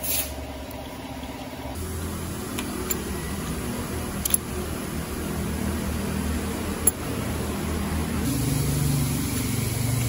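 A steady low mechanical hum, with two sharp metallic clicks about four and seven seconds in as parts of an Isuzu 4HK1's rocker-arm valve gear are handled.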